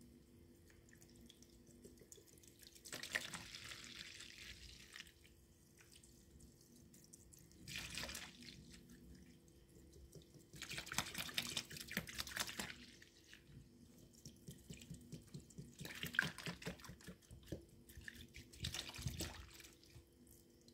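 A clear liquid soap mix pouring in a thin stream from a bottle onto a soaked sponge in a tub of soapy water, splashing in about five separate bursts of one to two seconds each.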